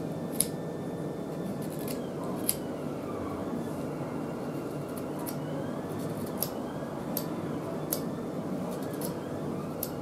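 Stanley knife blade shaving and cutting a small model kit part by hand: quiet scraping strokes with a handful of sharp, irregular clicks as the blade bites and snaps through, the loudest about half a second and two and a half seconds in.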